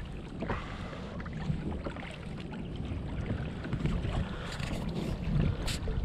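Wind noise on the microphone on a kayak at sea, with small splashes of water against the hull and a few sharper ones near the end.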